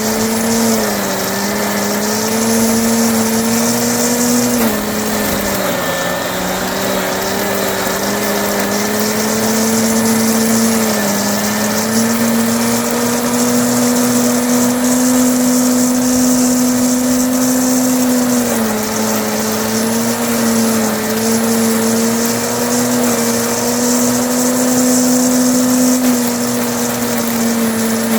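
Sun Joe electric leaf mulcher running steadily while shredding hay. Its motor whine sags in pitch a few times as hay loads it, then recovers.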